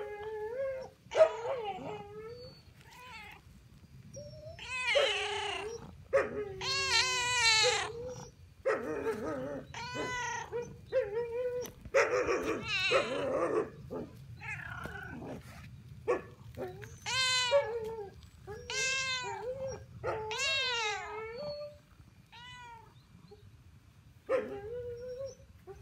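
Cat meowing over and over, a dozen or more long calls that bend in pitch, begging for food.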